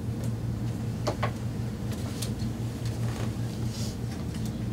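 Steady low room hum, with a few soft clicks and rustles from a paperback book's pages being handled as the reader looks for his place.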